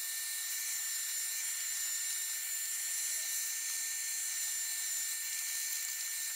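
Vacuum cleaner running steadily with a high whine as it sucks dust out of a tube radio's chassis.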